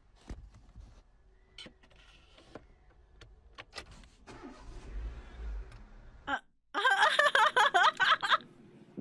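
A car's low rumble with a few scattered knocks, growing louder and then cutting off suddenly; near the end, a loud burst of high, fast-wavering cries lasting under two seconds.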